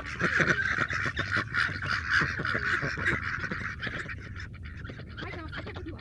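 Ducks and turkeys calling together in a dense, overlapping clamour of many short calls, thinning out over the last couple of seconds.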